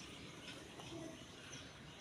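Faint outdoor background with a few brief, high bird chirps.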